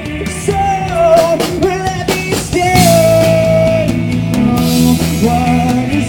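Live rock band playing: a male singer's amplified voice over electric guitar and drums, holding one long note about three seconds in.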